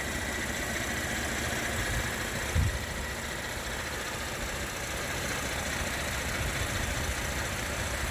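Holden Commodore SV6's 3.6-litre V6 idling steadily, with the bonnet open and the belts turning. A single short thump comes about two and a half seconds in.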